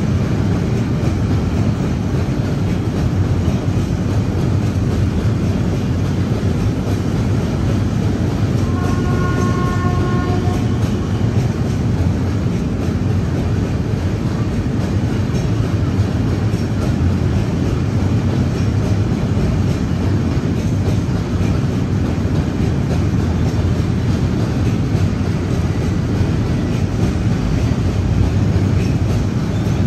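Freight wagons rolling past on the rails behind the locomotives: a steady low rumble of wheels on track. About ten seconds in, a brief pitched tone sounds for a second or so over the rumble.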